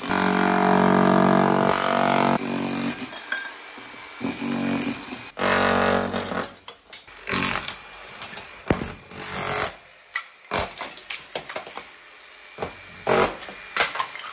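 Demolition of a tiled hollow-brick wall. A power tool runs in a few bursts, then a series of sharp knocks and clattering follows as broken tile and brick pieces are knocked out and fall.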